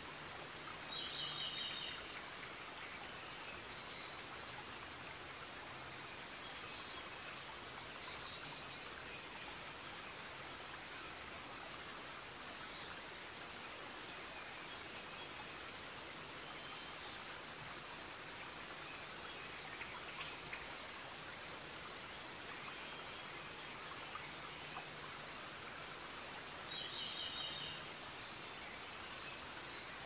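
Forest ambience: birds calling over a steady even hiss. Short high chirps come every few seconds, and a trilled phrase comes four times: about a second in, around eight seconds, around twenty seconds and near the end.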